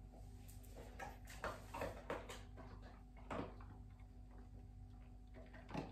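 Faint scattered clicks and taps, about eight of them at irregular intervals, over a low steady hum.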